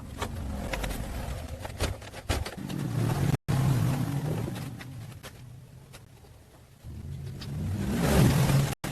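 A car engine running and revving, rising and falling, in short pieces that cut off abruptly twice.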